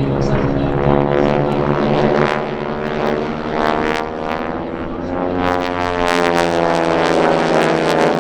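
Propeller aircraft flying past, a steady drone of engines and propellers whose pitch bends up and down as it goes by.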